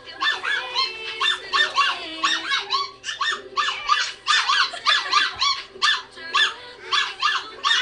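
Very high-pitched, squeaky falsetto singing in short, quick notes, two or three a second, sung badly on purpose.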